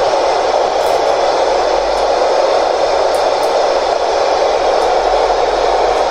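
Amateur radio transceiver with its squelch open giving a steady rush of FM static, receiving no station on the ISS repeater downlink.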